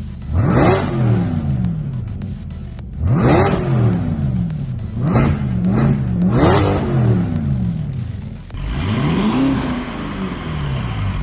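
Performance car's aftermarket exhaust as the engine is revved in five blips. Each blip rises sharply in pitch and falls back toward idle; the last, near the end, climbs more slowly.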